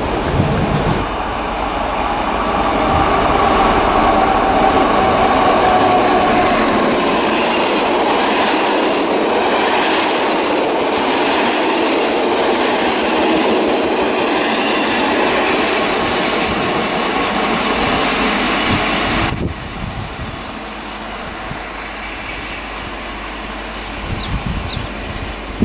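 A double-deck electric passenger train passes close at speed, with the rush and clickety-clack of wheels on rail. A high sustained squeal rides over it in the first few seconds, and a loud high hiss comes about two-thirds of the way through. Then the sound cuts to a quieter steady rumble as another double-deck train approaches.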